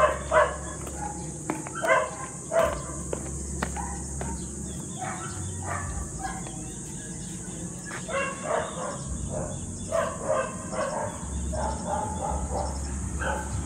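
Dogs barking in short, irregular barks throughout, over a steady high drone of insects.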